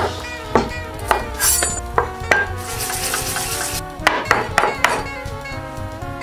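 Light background music, with a few sharp strokes of a chef's knife slicing carrot on a cutting board in the first couple of seconds and a short stretch of hiss near the middle.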